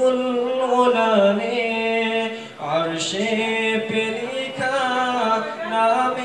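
Solo male voice singing an Urdu ghazal without accompaniment, in long held notes with small ornaments. There is a brief breath pause about two and a half seconds in.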